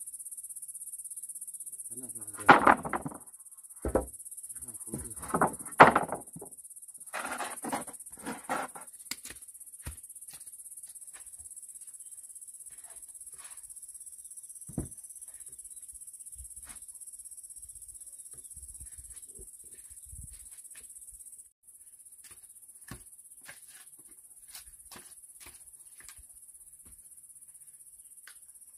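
Steady high-pitched chirring of insects, with a few louder short sounds in the first nine seconds and scattered faint clicks after.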